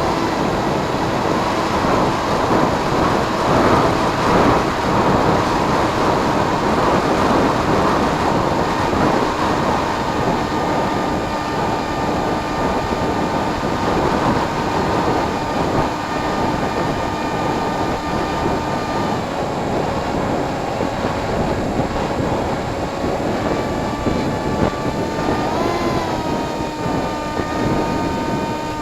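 Electric motor and propeller of a Firstar FPV model plane running in flight, a steady whine with several tones, under heavy wind rush on the microphone that eases after the first third. The pitch shifts with throttle, with a brief rise and fall near the end.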